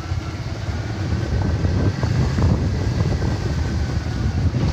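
A motorcycle engine running under way, with wind buffeting the microphone; the rumble grows louder about a second in.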